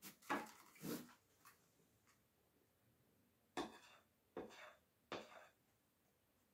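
A spoon scraping and tapping as cake batter is scooped from a bowl into paper cupcake cases, with paper cups set on a metal baking tray. There is a quick cluster of short clicks and scrapes in the first second or so, then three brief scrapes a little over half a second apart.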